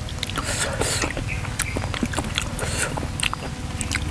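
People eating and chewing food, with wet smacking and many small, irregular clicks and crackles.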